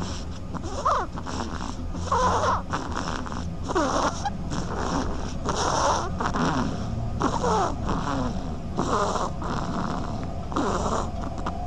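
A sleeping duckling snoring: a short, raspy, squeaky breath about once every one and a half seconds, about seven times in a row.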